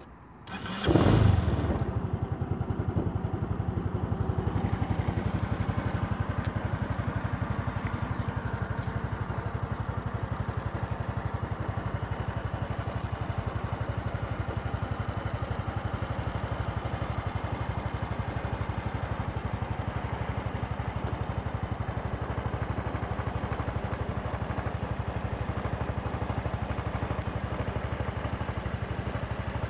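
Honda SES125 Dylan scooter's single-cylinder four-stroke engine started on the button, catching with a brief surge about a second in, then idling steadily.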